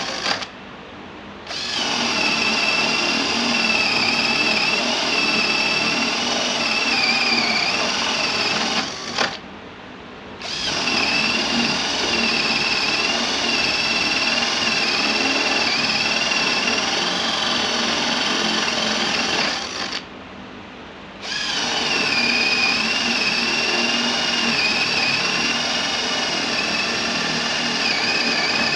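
Worcraft CD-20LiP 20 V cordless drill boring into a wooden board, its motor whining steadily under load with a slightly wavering pitch. The drill stops briefly three times: near the start, about nine seconds in and about twenty seconds in.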